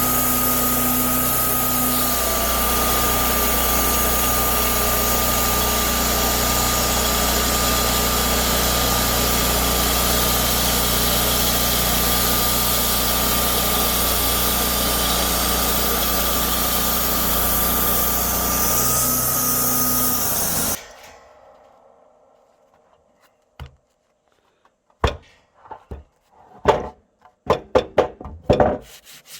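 Wood-Mizer LT40 band sawmill running through a cut in a frozen white cedar log: a steady engine drone with a high, even blade whine, which stops suddenly about 21 seconds in. Several sharp knocks follow near the end.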